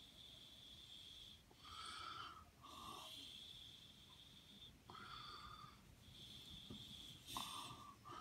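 Faint breathing with a soft whistling tone, several breaths a second or two apart, close to the microphone and otherwise near silence.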